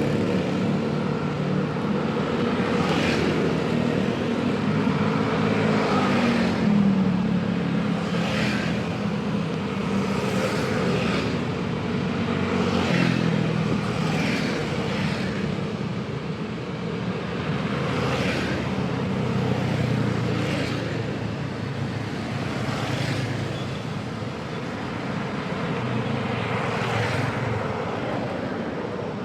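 Busy road traffic: motor-vehicle engines running steadily, with vehicles passing one after another every second or two.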